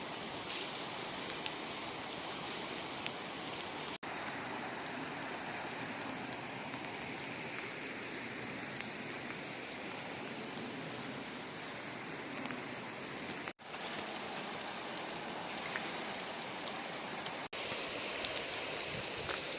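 Steady noise of falling or running water, which briefly drops out three times.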